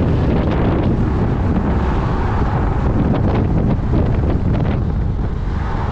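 Strong gusty wind buffeting the microphone, a loud, steady rumble that swells and eases with the gusts.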